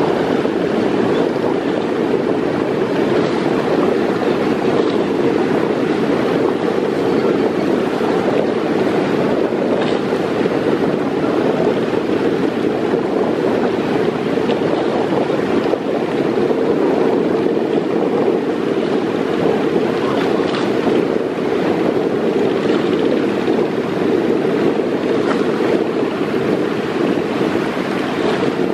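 Steady rushing noise of wind and rough river water as a passenger launch ploughs through the waves, its bow throwing spray.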